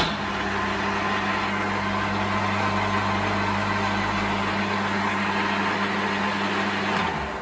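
Optimum metal lathe switched on, its motor and spindle running at a steady speed with an even hum and whine, spinning freely with the hand-crank mandrel clamped in the spindle. About seven seconds in it is switched off and starts to run down.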